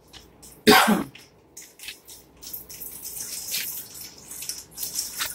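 Water running and splashing in a kitchen sink under the faucet, steadier in the second half, with one brief loud noise about a second in.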